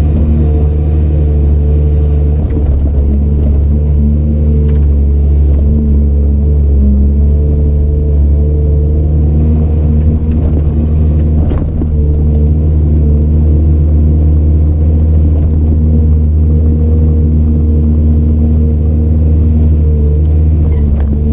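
Diesel engine of heavy earthmoving machinery running steadily under a deep, unbroken drone, with one sharp knock about halfway through.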